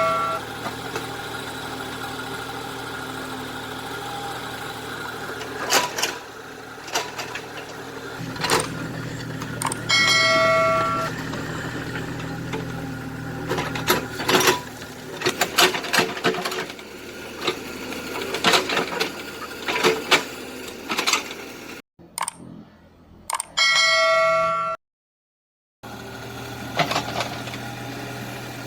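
Kubota KX91-3 mini excavator's engine running steadily while it digs, with irregular metallic clanks and knocks from the bucket and arm. A bell-like chime rings twice, and the sound cuts out briefly near the end.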